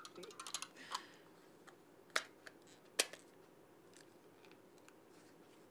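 Light plastic clicks and rattles from a hand-held plastic neck-exerciser shell being twisted and pushed back together over its spring: a quick run of small clicks in the first second, two sharper clicks about two and three seconds in, then a few faint ticks.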